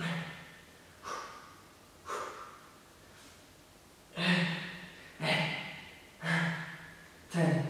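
A man breathing out hard in short rhythmic bursts, about one a second, as he does press-ups, with a brief pause near the middle. From about four seconds in the exhales are louder and voiced, like effort grunts.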